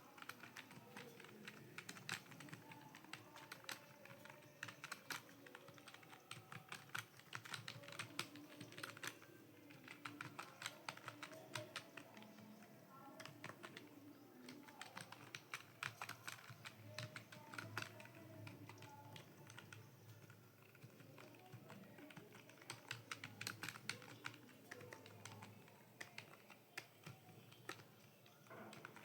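Steady fast typing on a computer keyboard: dense, irregular key clicks with a few brief lulls.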